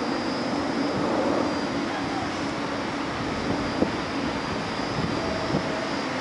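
R46 subway train standing in the station with its equipment running, a steady hum and rumble. A single sharp click comes about four seconds in.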